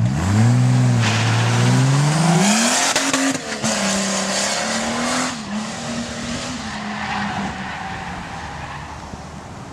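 Ford Falcon sedan accelerating hard through a cone course. The engine revs rise over the first few seconds, then hold steady. The tyres squeal and skid from about a second in until around five seconds, then the engine fades as the car moves away.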